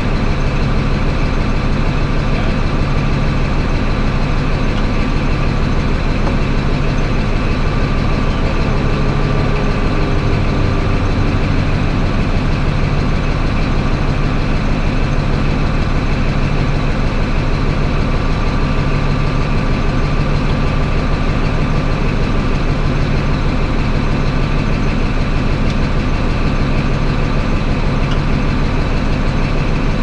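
Caterpillar D11 bulldozer's diesel engine running steadily, with a deep, even beat.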